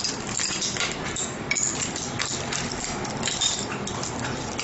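Hardened almond caramel brittle being broken apart by hand on a marble counter: an irregular run of crisp snaps and clicks as the sugar sheet cracks and the shards clink and scrape against the stone.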